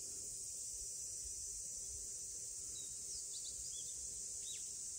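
Steady high-pitched insect chorus, with a few short bird chirps in the second half.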